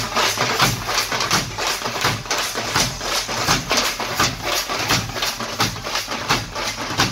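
A group of tamate frame drums beaten with sticks, playing a fast, dense rhythm together.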